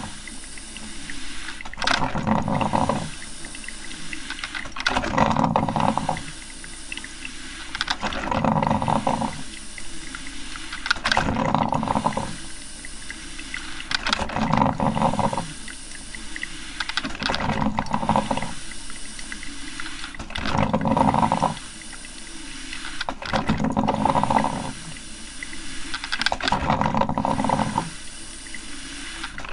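Coffee maker brewing: gurgling, sputtering bursts of water and steam about every three seconds, over a steady hiss.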